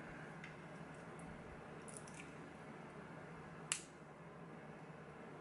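A few faint, small clicks and scrapes of tools working at a lock cylinder's retaining clip, with one sharp click a little before four seconds in, over a low steady hum.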